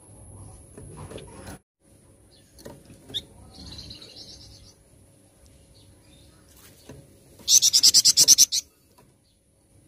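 Flamboyan songbird singing: a soft high trill about three and a half seconds in, then near the end a loud, fast run of about ten repeated high notes, over a steady thin high whine.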